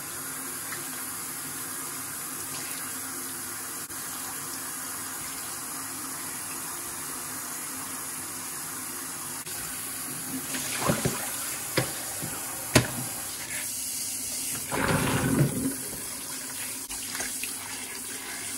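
Tap water running steadily into a kitchen sink over a whole peeled beef tongue being rinsed to wash the blood out. A few sharp knocks come about two-thirds of the way through, and a louder burst of splashing follows near the end.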